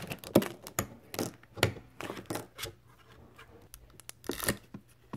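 Plastic toy packaging being handled and crinkled, in short irregular rustles and clicks.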